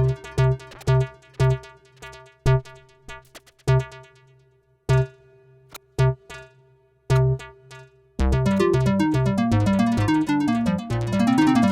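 Korg Minilogue XD analog polyphonic synthesizer playing a preset. Short, plucky low notes sound under a held higher note, then about eight seconds in a fast, busy run of rapid notes starts.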